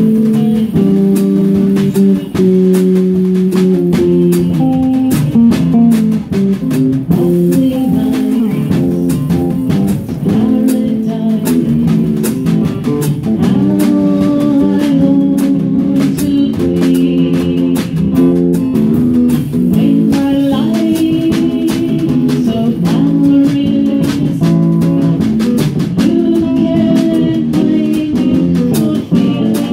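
Jazz trio playing an instrumental passage: acoustic guitar and electric bass guitar over drums with steady cymbal strokes.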